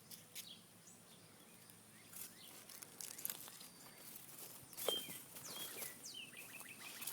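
Faint outdoor ambience: birds chirping, with a rapid trill of repeated notes near the end, and scattered light clicks and rustles.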